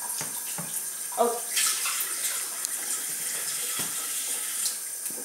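Kitchen sink tap running a steady stream of water while a glass measuring jug is filled, the rush growing stronger about a second and a half in.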